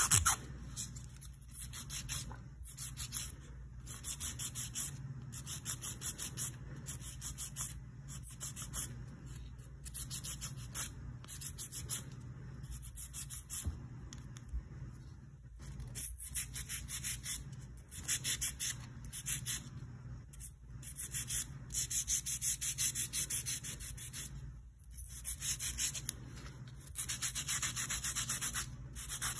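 Hand nail file scraping back and forth across an artificial gel nail extension to shape it, in quick runs of strokes with short pauses. A steady low hum runs underneath.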